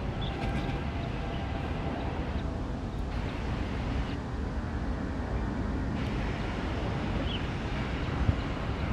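Steady low outdoor rumble with no clear single source, and a couple of faint bird chirps near the start and about seven seconds in.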